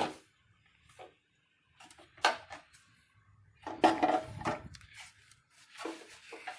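Short clicks and knocks of the dipstick cap being worked out of and back into the oil fill tube of a small snowblower engine during an oil-level check, with a louder clatter about four seconds in.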